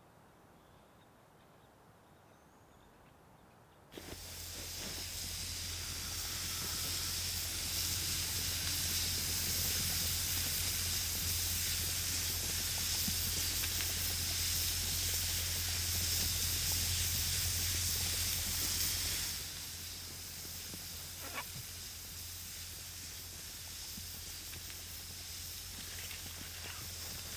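Afghan pressure cooker hissing steadily as steam vents from its valve, starting suddenly about four seconds in after faint quiet and dropping to a softer hiss about two-thirds of the way through.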